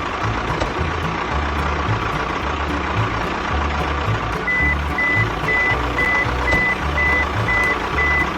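Background music with a throbbing low beat, joined about halfway through by a vehicle reversing alarm beeping a single high tone about twice a second.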